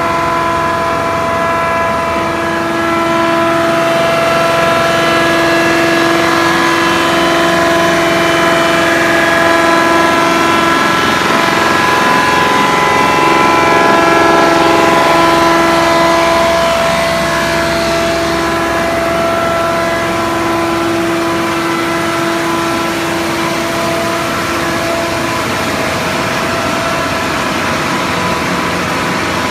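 Wood crushing machine running: a loud, steady industrial drone with a strong steady hum tone, swelling a little in the middle and easing off again.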